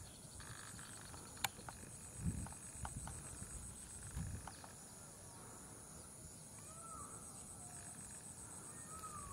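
Faint outdoor ambience: a steady high-pitched trill, a few soft low thumps, a single click, and two short rising-and-falling whistles near the end.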